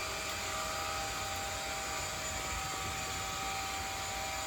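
A small electric motor running steadily, a hum with a few held whining tones that does not change.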